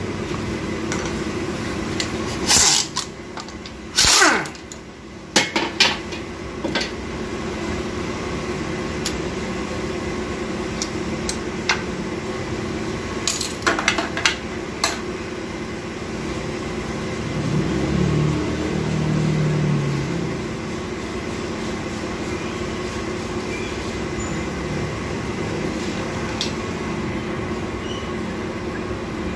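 Metal clicks and clanks from hand tools and automatic-transmission parts being worked on while the transmission is dismantled, over a steady background hum. A cluster of sharp clanks comes a few seconds in, and a few more about halfway through.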